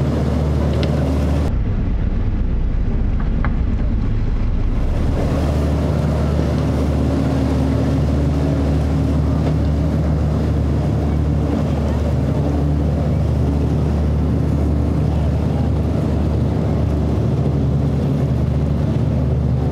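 Outboard-powered motorboats running hard through rough inlet waves: steady low engine drone under the hiss of spray and wind on the microphone, changing at cuts between boats.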